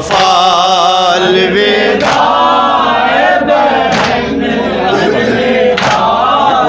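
Men's voices chanting a Muharram noha together, a sung line with wavering pitch taken up by the group. Sharp hand-on-chest slaps of matam land in time about every two seconds, three strikes in all.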